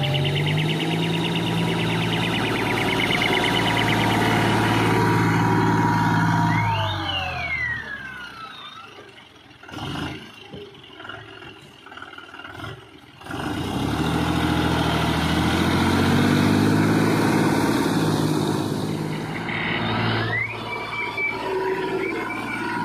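John Deere farm tractor's diesel engine running and revving as it drives through deep, fast-flowing floodwater, its pitch rising and falling. There is a quieter stretch of about five seconds in the middle.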